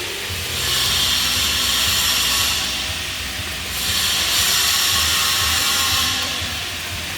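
Flux-cored arc welding arc hissing and crackling in two runs of about two seconds each, with a short break between them.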